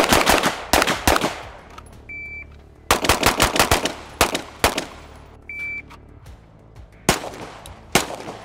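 Rapid strings of pistol fire from Glock pistols. There is a fast string right at the start. About two seconds in, a shot timer gives a short high beep and a new string follows about half a second later. A second beep at about five and a half seconds starts another string near the end.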